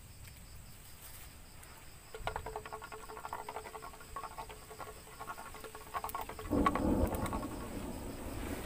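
Knife scraping and cutting into a green bamboo tube in short repeated strokes starting about two seconds in, with a louder rough stretch of handling near the end. Night insects chirp steadily in the background.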